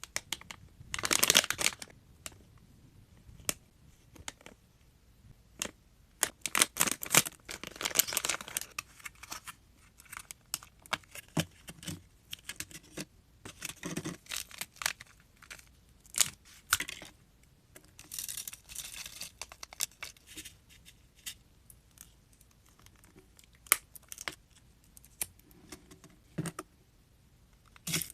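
Plastic candy packaging being torn open and crinkled up close, in several bursts of crackling, with sharp little clicks and taps of plastic in between.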